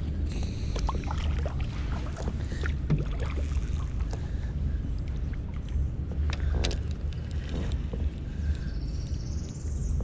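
Wind rumbling on the microphone and water around a kayak, with scattered light clicks and knocks from a spinning rod and reel being handled. A faint rising whine comes near the end.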